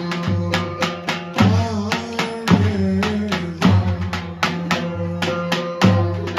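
Live folk dance music: a davul bass drum beaten in a steady, driving rhythm under a sustained, wavering melody line.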